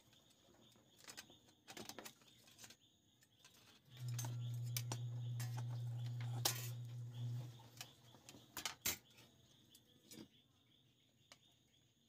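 Light clicks and taps of metal and plastic parts as a car stereo's circuit board, ribbon cable and metal chassis plate are handled. A steady low hum of unknown source comes in about four seconds in and stops suddenly a few seconds later.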